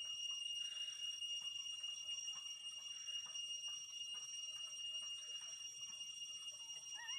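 Newborn puppies, three days old, make soft clicks and small squeaks, and one gives a short rising whimper near the end. Through it all runs a faint, steady high-pitched whine.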